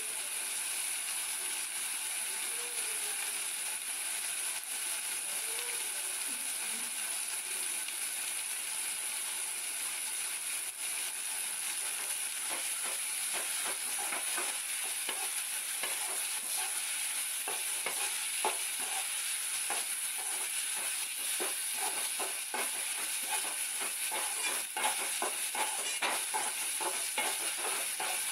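Food frying and sizzling in an aluminium pan on a gas stove, a steady hiss. From about halfway through, a metal ladle stirring the mixture scrapes and clicks against the pan again and again.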